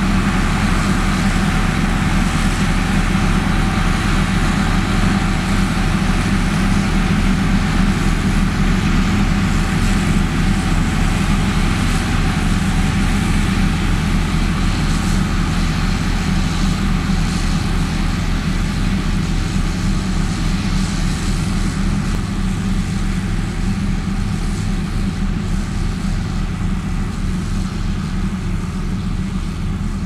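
Heavy diesel engines of Liugong single-drum road rollers running steadily at working speed, a constant low engine drone with a deep hum underneath.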